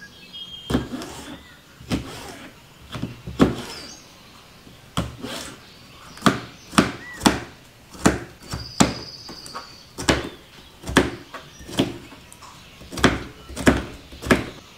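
Chef's knife dicing nopal cactus paddles on a plastic cutting board: sharp knocks of the blade hitting the board, coming irregularly about once or twice a second.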